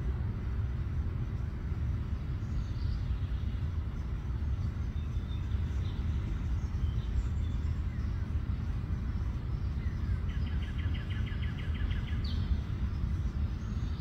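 Steady low outdoor rumble, with faint high chirps of small birds now and then. About ten seconds in, a songbird gives a rapid trill of about two seconds, followed by one short rising note.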